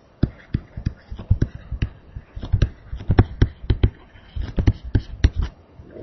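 Pen tapping and knocking on a writing surface as a line of handwriting is written: a rapid, irregular run of sharp taps, several a second.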